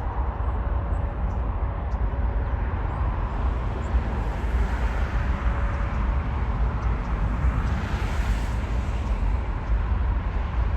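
Jet airliner engines passing: a steady low rumble under a rushing jet noise that swells from about four seconds in, peaks near eight seconds and then eases.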